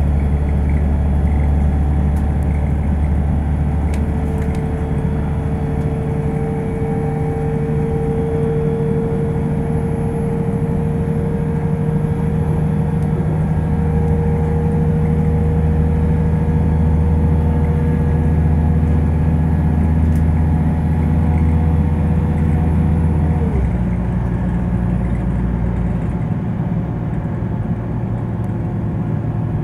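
Class 172 diesel multiple unit heard from inside the carriage while under way: a steady low diesel drone with a thin whine over it. About 23 seconds in, the whine slides down and stops and the engine note drops.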